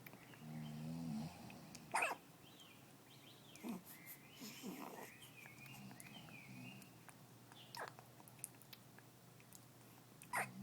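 Sudden hiccups, three spaced several seconds apart, from a sleeper who snores softly in between. Birds chirp in the background in the middle of the stretch.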